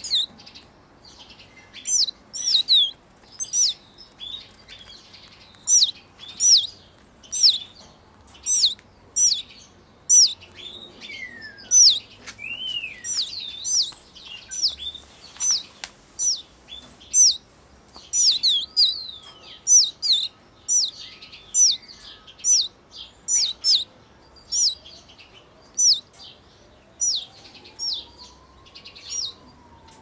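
Canary fledgling calling: a steady run of short, high chirps, about one or two a second, each dipping and rising sharply in pitch, with a few longer sliding calls in among them.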